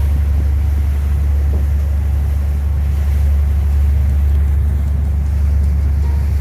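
Vehicle in motion: a steady low rumble with no change in pitch or level.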